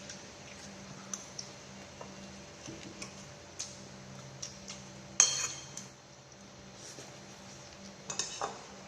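Utensils clinking and tapping against dishes in a run of scattered light clicks, with a louder clatter about five seconds in and a few quick clinks near the end.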